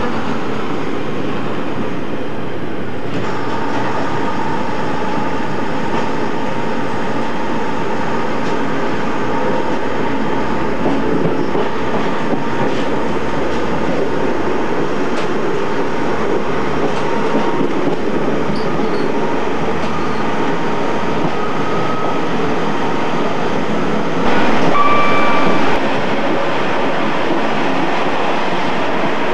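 Passenger train running on the line into Preston, heard from the front window behind the driver's cab: a steady rumble of wheels on rails with a faint whine through the middle, and a brief, louder tone about 24 seconds in.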